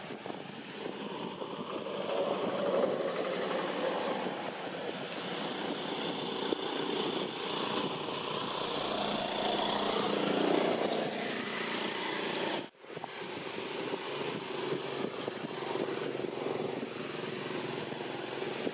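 A steady mechanical drone of a distant engine, swelling and fading slowly, with a brief cutout about two-thirds of the way through.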